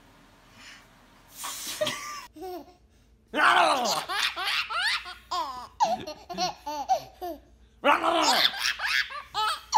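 Baby laughing in repeated hearty bursts from about three seconds in, with short pauses for breath between them.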